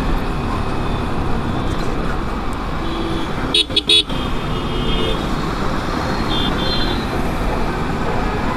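Yamaha R15 V4's single-cylinder engine running with road noise while riding through city traffic, with vehicle horns honking: one short, loud toot about three and a half seconds in and fainter honks around it.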